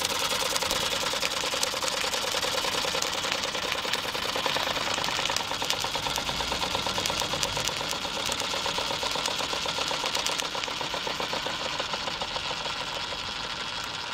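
Märklin 4122/11 vertical live-steam toy engine running: a fast, even mechanical beat over a steady steam hiss, easing off a little in the last few seconds.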